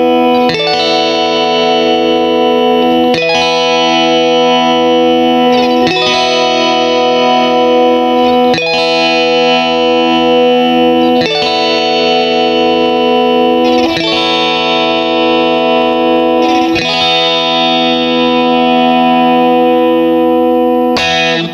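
Electric guitar in Nashville tuning played loud through a Supercool Spritz! compressor pedal: chiming chords struck about every two to three seconds, each held with long, even sustain. The playing stops right at the end.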